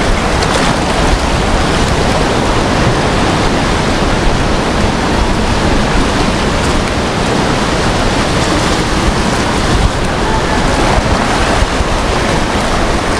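Sea surf washing and breaking on a rocky shore and against a concrete platform, a steady loud wash of water, with wind on the microphone.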